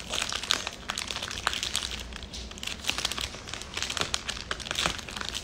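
A clear plastic bread bag crinkling and crackling irregularly as fingers twist and handle its gathered neck.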